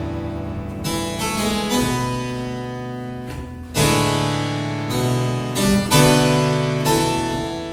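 Solo harpsichord playing: plucked chords that ring and slowly fade, with a loud new chord struck about four seconds in and another near the end.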